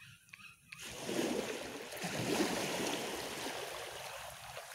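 A small sea wave washing in against the concrete blocks at the foot of a seawall: a rush of water that swells about a second in and dies away over the next few seconds.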